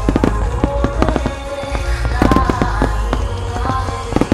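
Fireworks shells bursting in rapid clusters of sharp bangs and crackles, over music with sustained notes.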